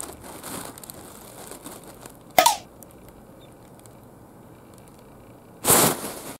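Plastic shopping bag rustling faintly, then a loud burst of crinkling about a second before the end as a cat pounces on it. A short sharp noise with a brief falling tone comes about two and a half seconds in.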